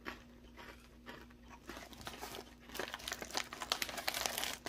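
Plastic stand-up candy pouch crinkling as it is handled. The rustling starts faintly and grows louder through the second half, over a faint steady hum.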